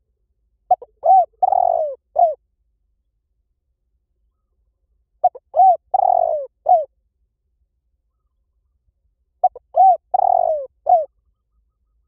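Spotted dove cooing: three calls about four seconds apart, each a couple of short notes, a longer falling coo and a closing note.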